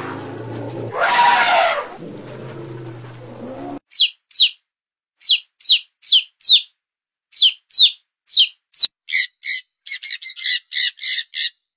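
An elephant trumpets once, loudly, about a second in. From about four seconds in, chicks give high peeps that slide down in pitch, coming faster near the end.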